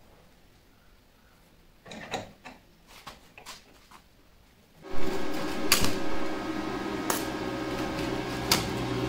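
A few light metallic clicks of steel hex nuts being set in place by hand. Then, about five seconds in, an electric arc welder strikes an arc and runs steadily on the steel nuts, a crackling buzz over a low hum with sharp pops.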